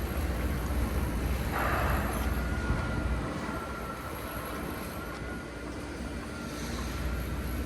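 Steady low rumble of outdoor road traffic, easing about three seconds in and building again near the end, with a faint steady high whine and a brief hiss near two seconds in.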